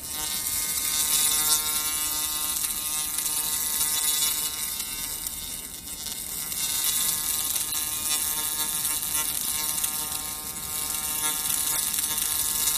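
Handheld fiber laser cleaning head stripping rust from a steel bar: a steady electric buzz with a high hiss that swells and eases several times.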